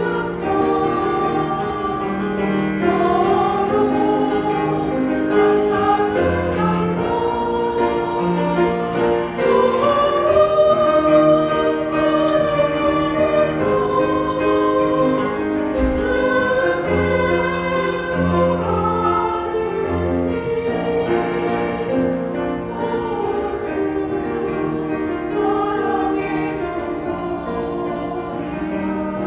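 Christian praise song: several voices singing a melody together over instrumental backing with bass notes and a steady beat.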